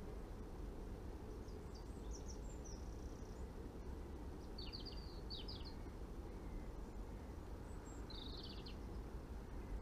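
A songbird singing short, high chirping phrases three times: about a second and a half in, around four and a half seconds, and near the end. Under it runs a steady low rushing background noise.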